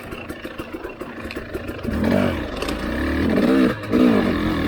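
Husqvarna TE300i 300cc two-stroke dirt bike engine chugging at low revs, then revved in three short rising-and-falling bursts from about two seconds in.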